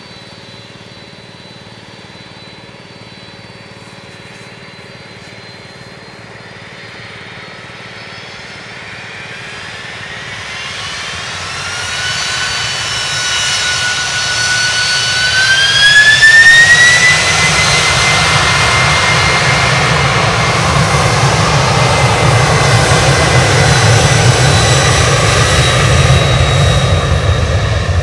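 Boeing 767-300F freighter's twin General Electric CF6-80C2 turbofans spooling up to takeoff thrust. A high whine climbs in pitch in two stages, reaching full power a little past halfway. It then settles into a loud, steady roar with a deep rumble as the jet accelerates down the runway on its takeoff roll.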